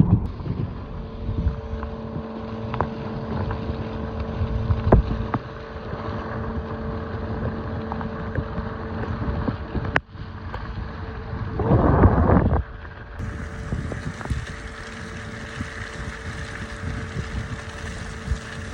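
Car driving slowly on a snowy road: steady engine and road rumble with wind buffeting the microphone, and a louder rush of noise lasting about a second past the middle.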